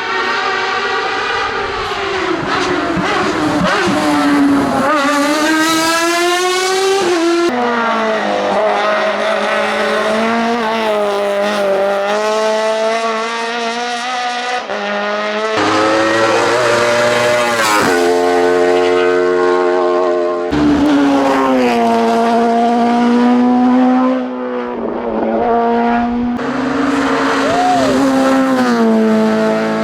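Hillclimb race car engines revving hard at full throttle, the pitch climbing and dropping sharply again and again through upshifts. The sound changes abruptly a few times, as one car gives way to another.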